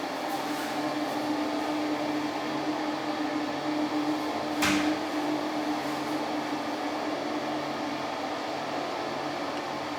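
A steady mechanical hum with a constant low tone, broken by a single sharp click about halfway through.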